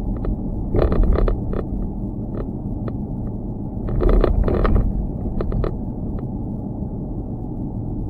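Loose GoPro camera mount rattling in short bursts of sharp clicks, about a second in and again between four and six seconds in, over a steady low rumble.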